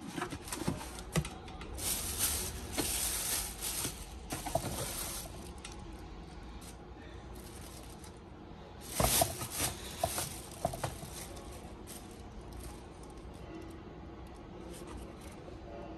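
Cardboard shoe box and tissue paper being handled during an unboxing: crinkly rustling with light taps and knocks, in two bursts, the first about two seconds in and the second about nine seconds in.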